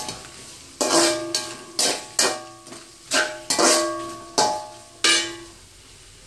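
A steel spatula stirs onions in a hammered aluminium kadai, knocking against the pan about nine times. Each knock rings briefly with the same metallic tones, and the knocking stops about five seconds in.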